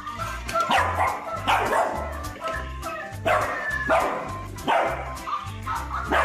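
Bernese mountain dog puppy barking repeatedly in play, short yappy barks roughly one a second, over background music with a steady beat.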